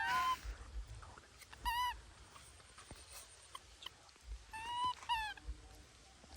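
A baby monkey giving about four short, high-pitched squeaking calls, each rising and then falling in pitch.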